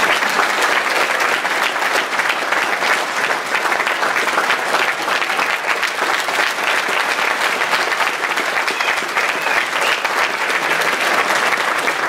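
Audience applauding, a dense sustained clapping that keeps going without a break.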